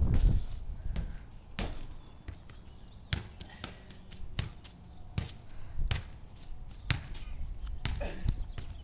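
Ball impacts from juggling: a string of sharp, short taps at uneven spacing, roughly one every half second to a second.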